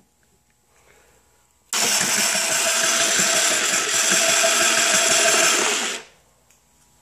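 Small electric winch motor running for about four seconds, winding its rope in onto the drum. It starts abruptly about two seconds in and cuts off suddenly.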